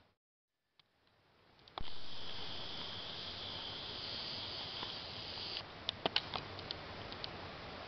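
Outdoor riverside ambience, with a steady high-pitched buzz over low background hiss that cuts off abruptly about five and a half seconds in, followed by a few light clicks. It starts after a second of silence and a single click.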